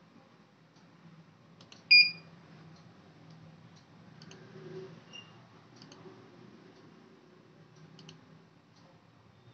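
Computer mouse buttons clicking, a dozen or so sharp clicks, often in quick pairs, as a DVR's setup menus are worked through. A short, loud electronic beep about two seconds in.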